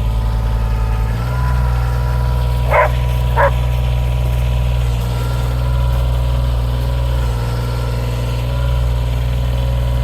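A vehicle engine running steadily, its note shifting slightly about a second in, with a dog barking twice about three seconds in.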